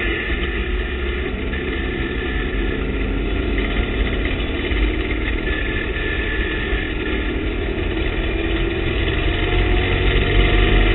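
TVR Tuscan race car's engine running at speed, heard from inside the cockpit over road and wind noise. It rises in pitch and gets louder over the last couple of seconds as the car accelerates.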